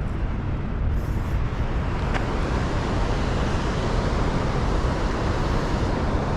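Steady rushing noise of water released below a dam, even and unbroken.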